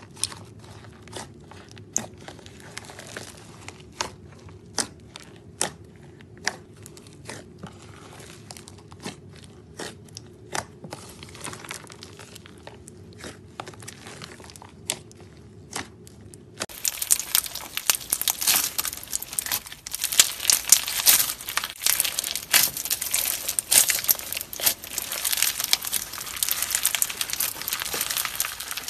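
Hands squishing and pulling slime studded with crunchy add-ins: scattered sharp pops and crackles over a faint steady hum. About 17 seconds in it cuts to a pink slime packed with small round beads being squeezed, a louder, dense, continuous crackling.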